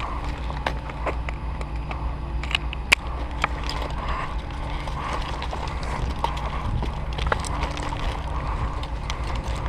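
Scattered sharp clicks and snaps, typical of airsoft gun shots and BB hits, over a steady low hum; the sharpest crack comes about three seconds in.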